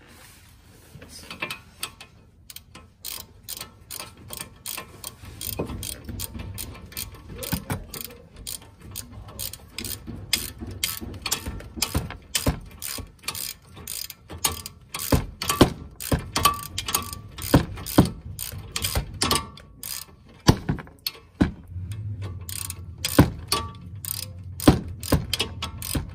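Hand ratchet wrench clicking in quick, uneven runs as a bolt is turned, the pawl ticking over on each return stroke; the clicks get louder and sharper from about halfway through.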